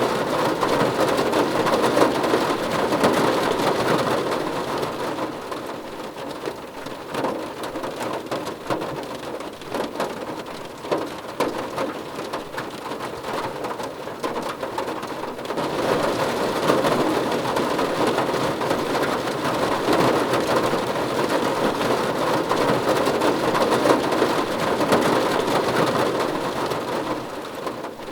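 Heavy rain falling on a car, heard from inside, a dense patter of drops on the roof and glass. The rain eases a few seconds in, then picks up heavy again about halfway through.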